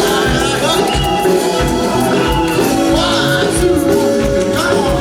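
Live praise-and-worship music: voices singing over a band with a steady beat.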